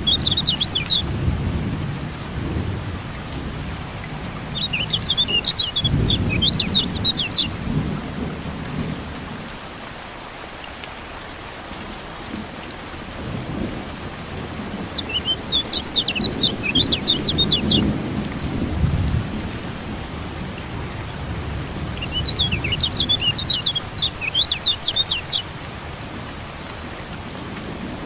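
A kecial kuning (white-eye) singing four short bursts of rapid high twittering, several seconds apart, over steady rain and rolling thunder that swells several times.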